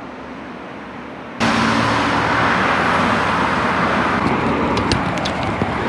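Steady road traffic noise, the rush of passing vehicles, cutting in abruptly about a second and a half in over a quieter background hiss.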